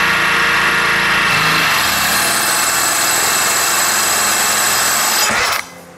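Bosch 18V cordless drill running steadily at speed, its hard-ceramic bit grinding into thick, hard granite tile; the drill stops about five and a half seconds in.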